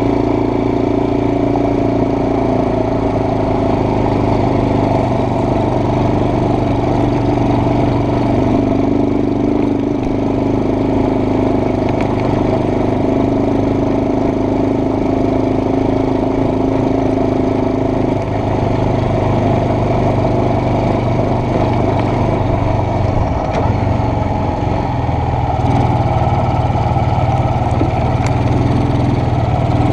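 ATV engine running steadily while the quad rides along a dirt trail, its note shifting about two-thirds of the way through.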